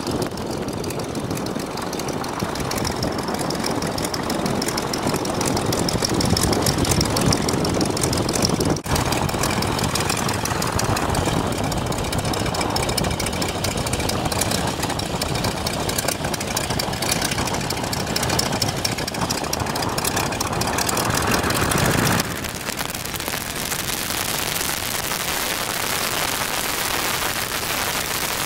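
Stearman biplane's radial engine and propeller running at taxi speed, heard from the open cockpit with propeller wash on the microphone. Near the end the engine sound drops away abruptly, leaving a steady hiss.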